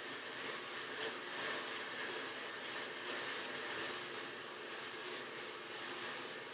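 Horizontal bandsaw running steadily, its blade cutting through a thick metal pipe near the end of a long, slow cut, with an even grinding hiss and a faint whine.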